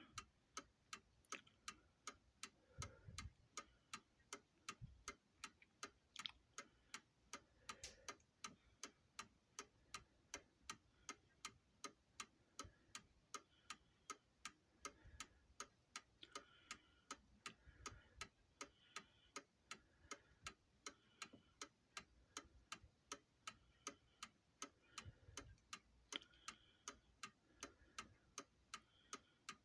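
New Haven mantel clock movement with a half-deadbeat escapement, fully wound, ticking evenly at about five ticks every two seconds. The ticks are light and crisp over near silence.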